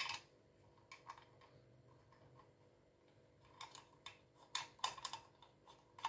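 Faint clicks and light metallic ticks of brass refrigerant charging-hose fittings being screwed together by hand. They come in irregular clusters, most of them in the second half.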